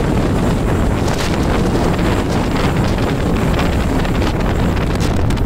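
Heavy wind buffeting the microphone on a boat running at speed, over a steady rush of outboard motors and water from the boats planing side by side.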